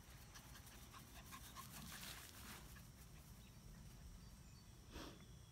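Near silence: faint rustles and light scuffs in grass, with a brief soft rustle about five seconds in.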